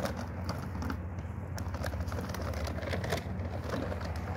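A steady low rumble with many light, scattered clicks and taps over it.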